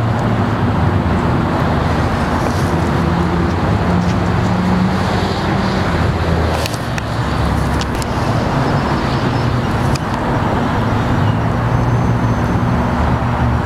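Diesel engine of heavy demolition equipment running steadily, its pitch shifting a little about halfway, with a couple of sharp knocks around the middle.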